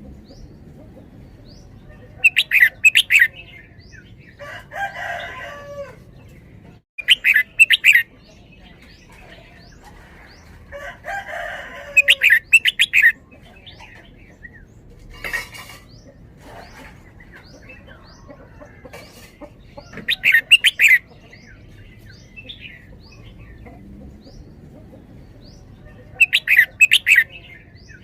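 Red-whiskered bulbul singing loud, quick bubbly phrases, about five of them a few seconds apart, with softer, lower warbling calls in between.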